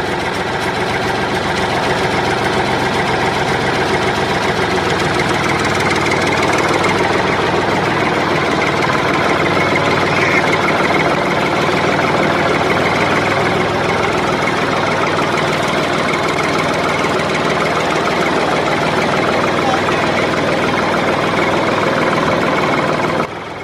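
A truck engine sound idling steadily with a fast, even pulse, cutting off abruptly near the end.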